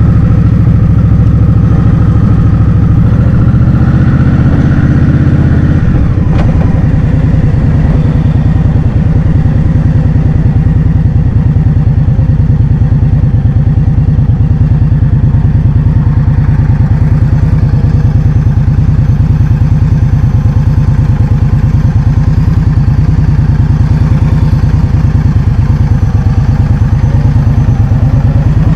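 Loud wind buffeting on the microphone of a moving scooter, with the scooter's engine running underneath. A fainter higher note climbs for a few seconds and then changes about six seconds in.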